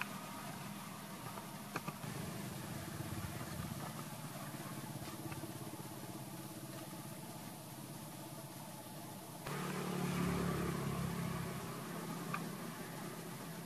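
A motor engine running steadily, a low hum that swells louder about ten seconds in, with a few faint clicks.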